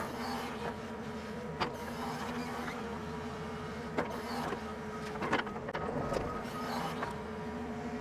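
Doosan crawler excavator's diesel engine running steadily in economy power mode, with a thin hydraulic whine, heard from inside the cab while the bucket digs clay. A few sharp knocks ring out along the way.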